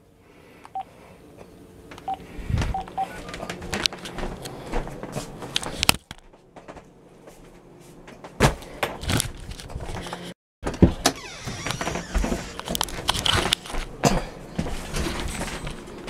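Camera handling noise: close knocks, clicks and rubbing against the microphone, with the sound cutting out briefly a little over ten seconds in.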